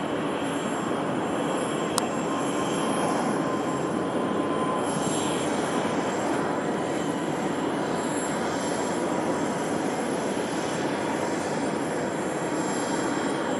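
Steady drone of the four-turboprop engines of two Airbus A400M transport aircraft in flight, heard as an even noise without clear rhythm. A single sharp click sounds about two seconds in.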